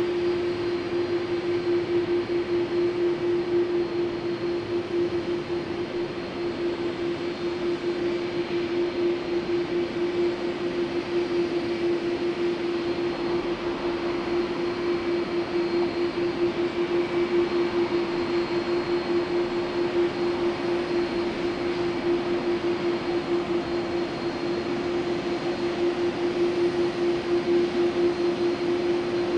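Twin General Electric CF6-80E1 turbofans of an Airbus A330-300 at taxi idle as the airliner rolls slowly past: a steady hum over an even rushing noise.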